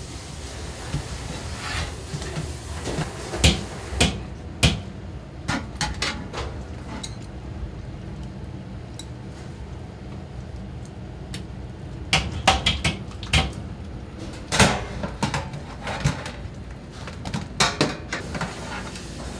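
Kitchen handling sounds: scattered, irregular knocks and clatter of dishes, utensils and containers, bunched into two busy spells, over a steady low hum.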